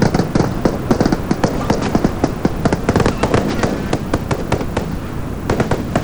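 Several Howa Type 89 5.56 mm assault rifles firing from a line of shooters: sharp cracks coming several times a second in an irregular, overlapping stream.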